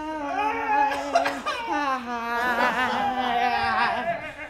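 A man singing long held notes, the first higher and the second lower and wavering, fading out near the end, with laughter from onlookers.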